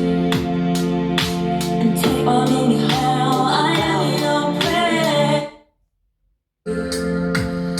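A dance track with a singing voice played at maximum volume through a portable Tronsmart Bluetooth speaker, with a kick drum hitting about twice a second. The music cuts off suddenly about five and a half seconds in and starts again after about a second of silence.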